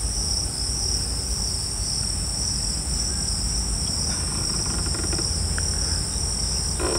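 Steady, high-pitched, unbroken chorus of crickets over a low rumble.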